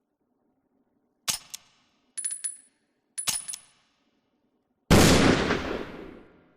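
Taurus Raging Bull revolver: three short bursts of sharp metallic clicks from the action, the later two with a high ringing, then one loud gunshot about five seconds in that dies away over a second and a half.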